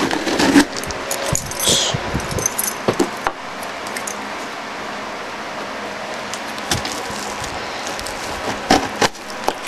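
A key being dragged through the packing tape on a cardboard box, slitting it open: scraping and rustling of tape and cardboard, with several sharp clicks in the first few seconds and a couple more near the end.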